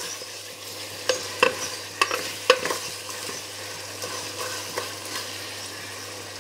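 A ladle stirring mutton pieces in a pressure cooker pot, knocking sharply against the metal several times between about one and three seconds in, once more later, over a faint sizzle of the meat frying in oil.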